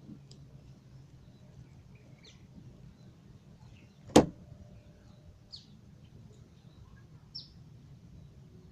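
A single sharp knock about four seconds in, with faint high bird chirps now and then over a low steady hum.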